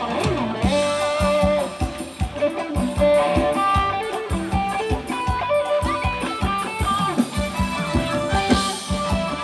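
Thai ramwong dance music from a live band played over a PA: electric guitar over a steady drum beat, about three beats a second.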